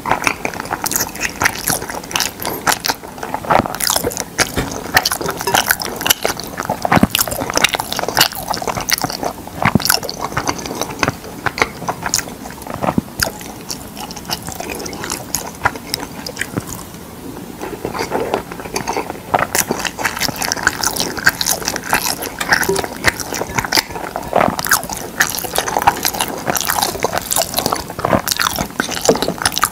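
Close-miked chewing of a mouthful of mixed rice: a dense run of wet smacks and mouth clicks, easing off briefly about halfway through. Near the end, chopsticks and a spoon stir the rice in a glass bowl.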